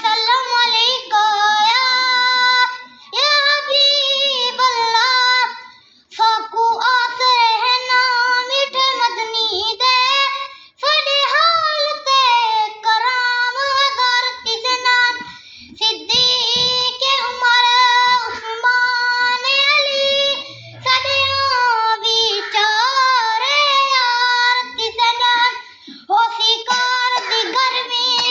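A child reciting the Quran in melodic tilawat style, in a high, clear voice. The recitation comes in long, drawn-out phrases with short breaths between them.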